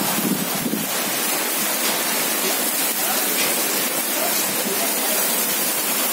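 Rain falling steadily onto a wet paved lane: a dense, even hiss.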